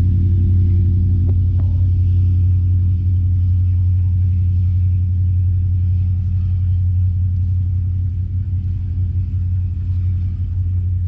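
Class S13A diesel multiple unit pulling away: a steady low engine drone that slowly fades as the train recedes.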